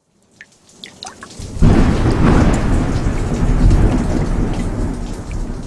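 Thunderstorm sound effect played through a 2010 Lincoln MKT's THX audio system: a few scattered drops, then about a second and a half in a sudden loud rolling thunder rumble with deep bass that slowly fades under steady rain.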